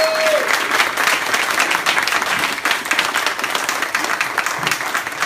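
Audience applauding, the clapping gradually dying down.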